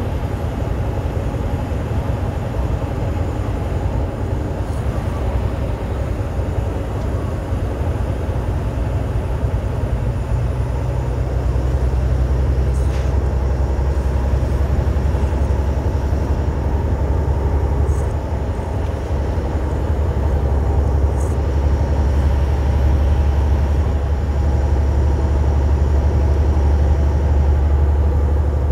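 Semi-truck's diesel engine and tyre noise heard from inside the cab while cruising on the highway: a steady low drone that grows stronger about eleven seconds in.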